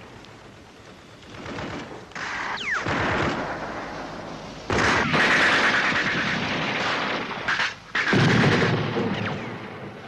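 Battle gunfire: bursts of automatic submachine-gun fire mixed with rifle shots, growing heavy from about five seconds in. A short falling whine sounds a little over two seconds in.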